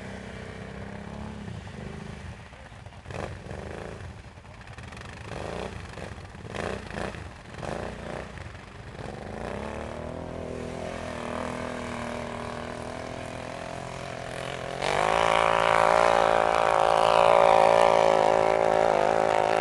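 ATV engines working in deep snow. One engine revs in short bursts, then pulls steadily. About fifteen seconds in, a much louder engine takes over, running hard at a high, steady pitch.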